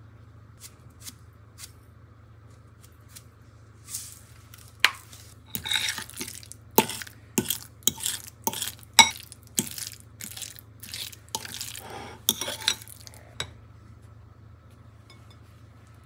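A metal utensil mashing and stirring boiled eggs, sweet corn and mayonnaise in a ceramic bowl. It clinks and scrapes against the bowl in a rapid, irregular run of sharp strikes from about four seconds in until near the end, after a few light taps at the start.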